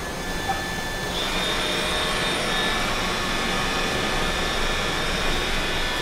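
iRobot Roomba 960 robot vacuum running as it starts cleaning: a steady high whine from its vacuum motor over a rushing hiss, growing louder about a second in.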